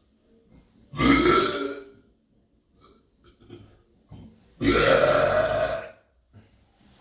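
A person burping loudly twice: one burp about a second in, and a longer one after about four and a half seconds.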